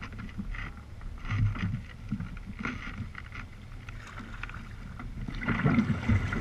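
Water sloshing and splashing around a sea kayak, with wind noise on the microphone and a louder stretch of splashing near the end.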